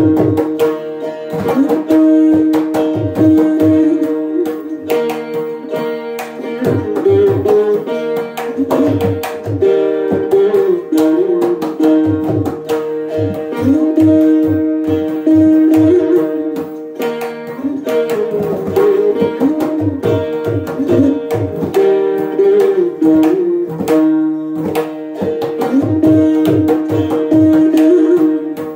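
Three veenas playing a Carnatic melody together, the plucked notes sliding up and down in pitch over a steady drone, with mridangam drum strokes beneath.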